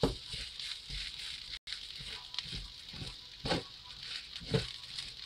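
Sauced rice being stirred and tossed in a wok over low heat: a spatula scraping through the rice in repeated strokes over a steady sizzle.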